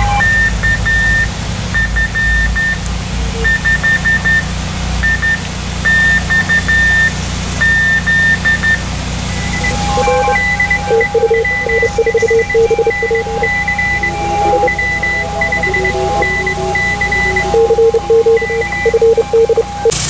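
Several Morse code (CW) signals beeping at different pitches at once from an amateur radio receiver on a busy band, keyed in short and long tones, with one long steady tone starting about halfway through. A steady low hum runs underneath.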